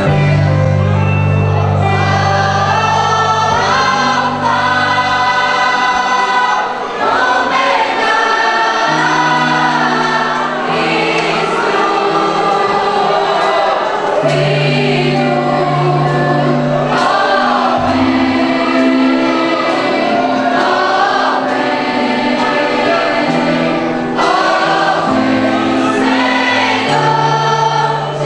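Youth choir singing a gospel hymn with instrumental accompaniment and a sustained bass line.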